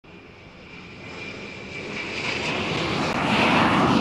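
Aircraft fly-by sound effect for an animated logo: a rushing swell that starts suddenly and grows steadily louder, with a faint high whine in the first half.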